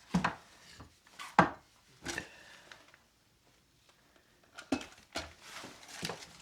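Small items of left-behind rubbish being picked up and put down one after another: a series of separate knocks and clatters, with a brief pause in the middle.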